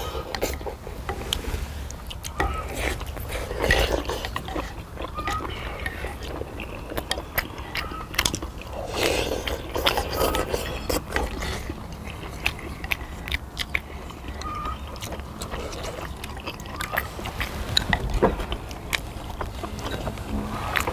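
Eating sounds from a bowl of beef short rib soup: slurping and chewing, with many light clicks of spoons, chopsticks and tongs against stone pots. There are louder slurps about four, nine and ten seconds in.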